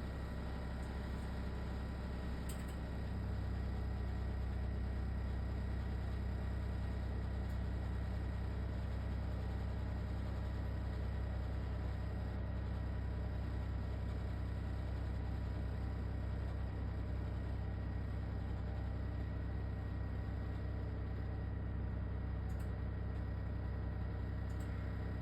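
LG ThinQ WSES4728F combination wall oven running with a steady low drone that gets a little louder about three seconds in. This is the noise its owner calls a horrible rattling, the sign of a fault in the unit.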